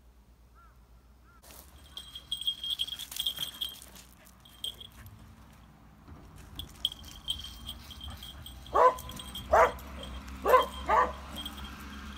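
Beagle-type dog's paws crunching on gravel as it comes up, with a high metallic jingle from its collar. Near the end it gives four short, loud yips about a second apart.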